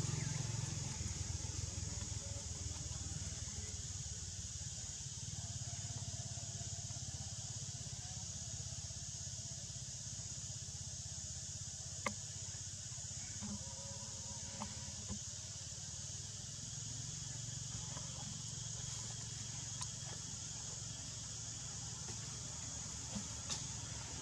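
Outdoor forest ambience: a steady high-pitched insect drone over a low rumble. A single sharp click comes about halfway through, and a couple of small clicks near the end.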